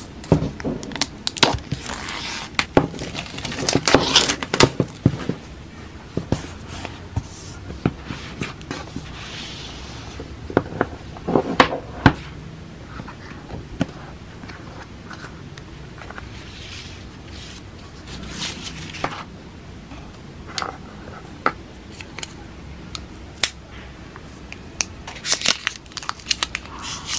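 Hands opening the cardboard box of an Apple Pencil (2nd generation): paper and cardboard tearing and scraping, with clicks and taps from the box lid and inner tray. It comes as a run of short bursts, busiest in the first five seconds and scattered after.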